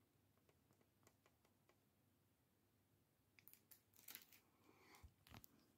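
Near silence with a few faint clicks, then a short patch of faint rustling and clicks of handling from about three and a half seconds in.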